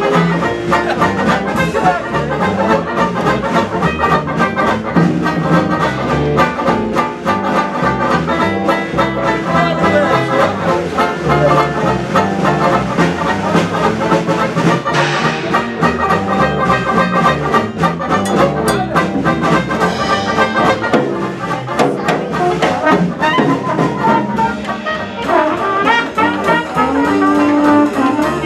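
Trad jazz band playing an instrumental chorus live: trumpet, trombone and clarinet over a walking double bass and drum kit.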